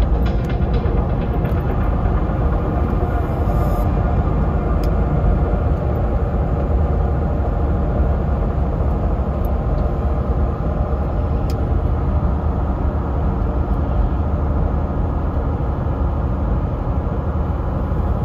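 Steady low rumble of a vehicle driving at highway speed, tyre and engine noise heard from inside the cab.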